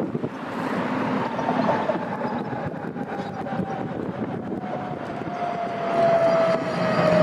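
Tatra T4D tram set approaching on its track: a rumbling run with a whine that slowly falls in pitch and gets stronger, the whole sound growing louder about six seconds in.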